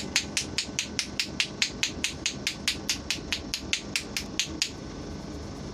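Rapid, even hand-tapping on a person's head during a head massage: sharp pats at about six a second that stop shortly before the end. A steady train running noise carries on underneath.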